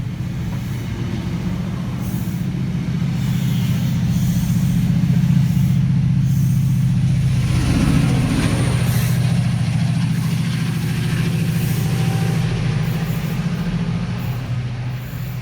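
Diesel train engine running loud and steady with a deep hum, swelling toward the middle and easing near the end, with a brief hiss about halfway through.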